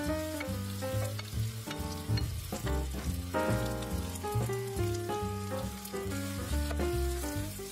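Mushrooms and sliced onion sizzling and crackling in melted butter in a frying pan as the onion is tipped in, over background music with a bass line.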